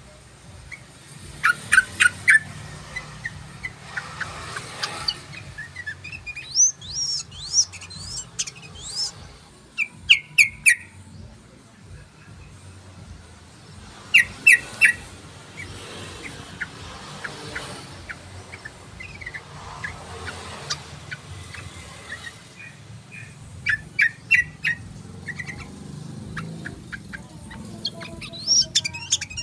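Yellow-vented bulbul (trucukan) song: loud bursts of three or four quick, sharp notes every few seconds, with a run of quick high sliding notes in between.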